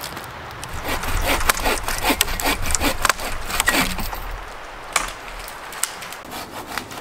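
Bow saw cutting through a dead conifer log, with quick back-and-forth rasping strokes for about three seconds. A few sharp knocks of wood follow near the end.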